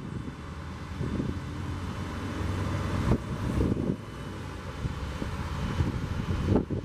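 Hino 338 truck's J08E diesel engine running to drive the hydraulics while the knuckle-boom grapple crane is worked, with wind on the microphone. Two brief knocks, about three seconds in and near the end.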